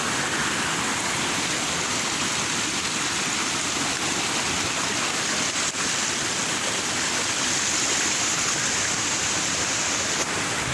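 Steady rushing of a river's water, an even hiss with no breaks.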